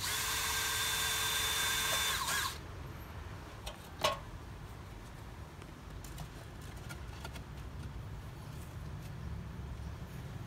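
Power drill running at a steady speed for about two and a half seconds, then stopping, as it drives a fastener into the porch roof trim. A short sharp sound with a quick falling pitch comes about four seconds in.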